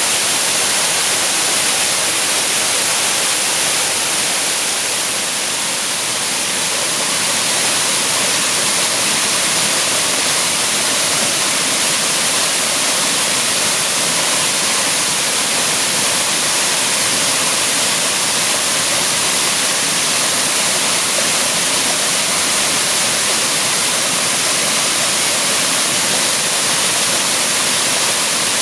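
Waterfall pouring steadily, a continuous loud hiss of falling and splashing water.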